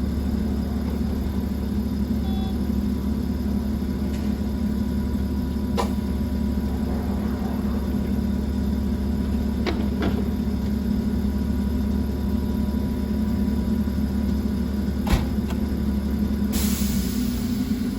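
Hakone Tozan Railway Moha 1/2 vintage electric railcar standing with its onboard machinery running, a steady low hum. A few sharp clicks come through it, and near the end a burst of hissing air.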